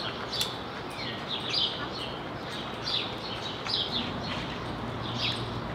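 Small birds chirping, short high calls about once a second, over a steady outdoor background hiss; a faint low hum comes in about four seconds in.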